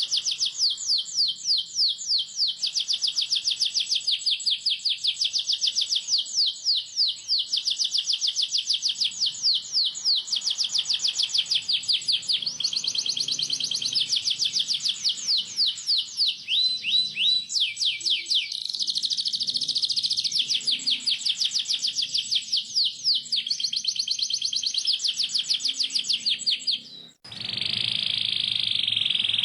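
Canary singing a long, fast rolled trill: rapid runs of repeated chirps, each note a quick downward sweep. Near the end it breaks off for an instant, then goes straight into a steadier, buzzier trill.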